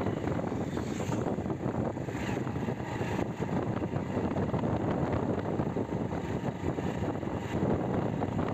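Hero Splendor Plus motorcycle on a test ride, its single-cylinder engine running under steady wind noise on the microphone. The ride follows replacement of a broken rear wheel bearing, and the rider reports no rattle from the chain, rear wheel or brake.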